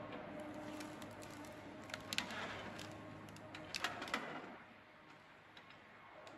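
Faint outdoor ambience: a low steady hum that fades about four and a half seconds in, with a few sharp ticks around two seconds and again around four seconds in.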